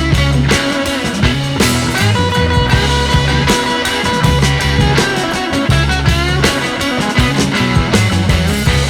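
Background music with a steady beat, a heavy bass line and held melodic notes.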